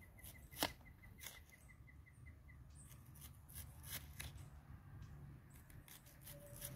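A small knife slicing an onion held in the hand over a plastic bowl: faint, irregular cuts and clicks of the blade. A faint high chirp repeats rapidly, about five times a second, and stops about two and a half seconds in.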